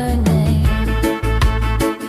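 Background music: a song with a strong bass line and a steady beat.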